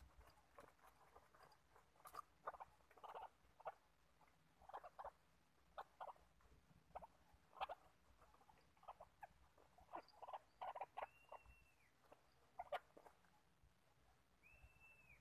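White-breasted waterhens at a cage trap, quiet and irregular short soft ticks and clucks as the birds move about. Two brief high whistled notes come near the end.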